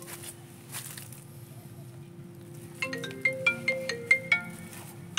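A marimba-style phone ringtone, a quick melody of short bell-like notes, starts about three seconds in and keeps playing. Before it there is only a low steady hum and a few handling knocks.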